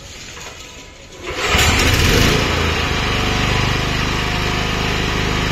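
Old four-stroke gasoline generator engine being pull-started: it catches about a second in, comes up loud, then settles into a steady run.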